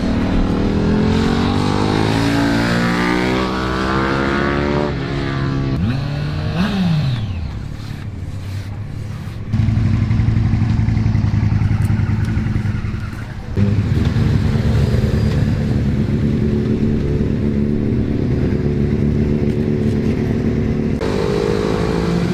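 Sport motorcycle engines. A track bike accelerates hard with its pitch stepping up through the gears, then passes with a falling glide. After an abrupt cut a sport bike's engine runs at a steady speed, with further abrupt cuts about four seconds later and again near the end.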